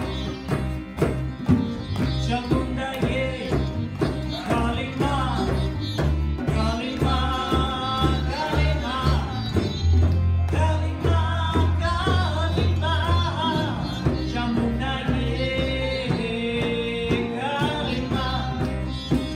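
Live kirtan music: women's voices singing a devotional chant over harmonium, acoustic guitar, tabla and upright bass. About halfway through, a long low bass note is held for a few seconds.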